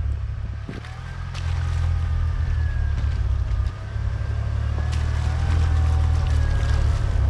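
4x4 truck's engine droning low and steady while driving, with faint thin squeaks and a few light clicks over it.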